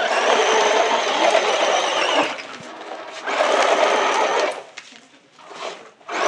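Tygatec Supersonic RC truck's electric motor and gearbox whirring in bursts as it tows a trailer loaded with another RC car. A long burst at the start and a shorter one about three seconds in, with quieter stretches between and another burst starting near the end.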